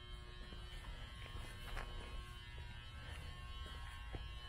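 Steady low hum with a faint electrical buzz made of several constant tones, broken by a few faint ticks and knocks.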